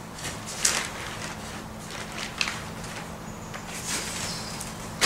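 Loose, rotten silage and muck being dug out by hand and tossed into a loader bucket: three short scraping, rustling strokes, the first the loudest, over a faint steady low hum.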